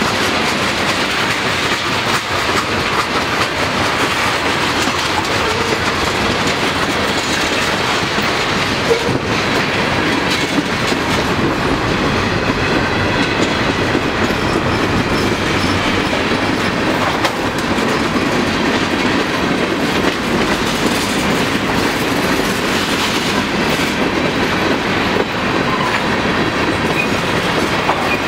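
Freight cars of a long manifest train rolling past close by: a steady loud rumble of steel wheels on rail, with repeated clickety-clack as the wheels pass over rail joints.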